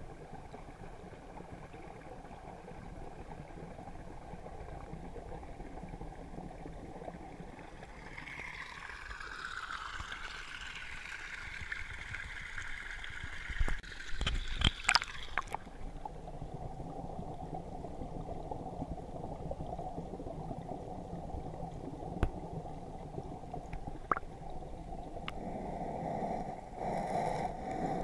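Creek water heard through a camera held underwater: a steady, muffled gurgle. About halfway through come a few loud knocks and splashes as the camera is moved at the surface.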